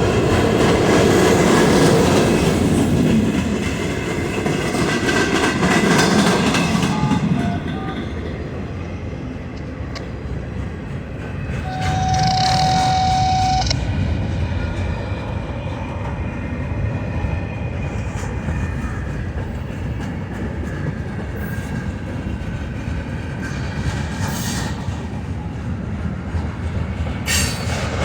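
Freight cars of a Norfolk Southern manifest train rolling past, wheels clattering over the rails with a steady rumble that swells and eases. About halfway through, a single steady tone sounds for a couple of seconds.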